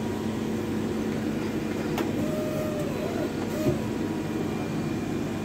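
Steady mechanical hum of a Miyano ABX-51TH2 CNC lathe under power, with two sharp clicks about two seconds and three and a half seconds in.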